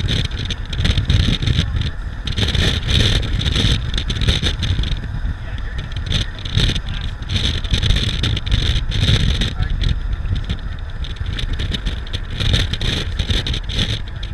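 A vehicle driving, with a steady low road rumble and a wavering hiss above it.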